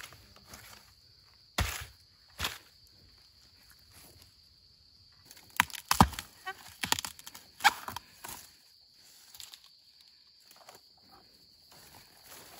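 Sharp cracks and snaps as young bamboo shoots are broken off by hand, a couple early on and a loud cluster around the middle, with rustling steps on dry bamboo leaves and a steady high insect drone.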